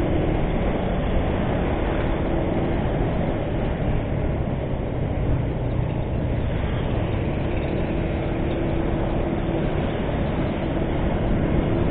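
A motor scooter riding at about 40 km/h: a steady engine hum mixed with wind and road noise.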